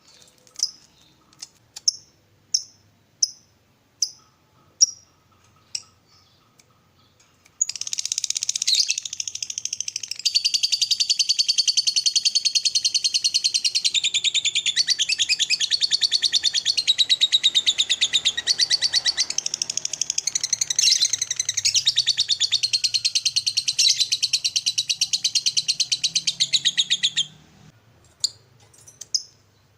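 Lovebird calling: a run of single sharp high chirps about one every two-thirds of a second, then a long rapid chattering trill (the 'ngekek' song) lasting nearly twenty seconds, then a few more chirps near the end.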